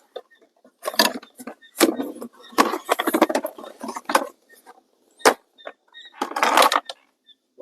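Plastic trim cover being worked loose and pulled off, rubbing and scraping in several short bursts, with a single sharp click about five seconds in.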